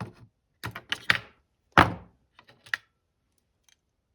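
Sharp clicks and knocks of cutters snipping through the radio's old battery pack and its leads, in an irregular string. The loudest snap comes a little under two seconds in, with fainter clicks near the end.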